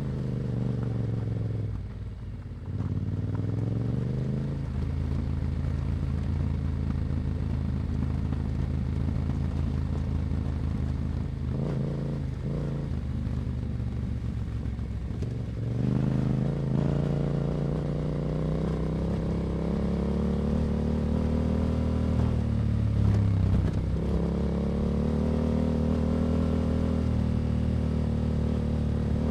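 Yamaha Ténéré 700's parallel-twin engine through an Akrapovic exhaust, ridden on the move with the revs rising and falling. The note drops away about two seconds in, then climbs again. It pulls louder a little past halfway, and eases off and picks up again near the three-quarter mark.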